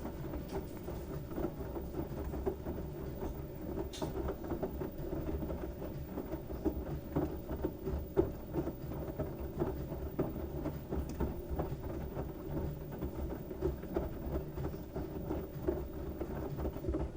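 LG washing machine running with a load of wet towels: a steady low rumble with dense, irregular clicking and pattering that cuts off abruptly at the end.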